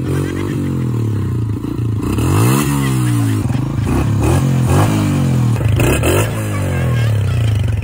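Motorcycle engine running at idle, with its pitch swinging up and down as it is revved, about two and a half seconds in and again around five to six seconds in.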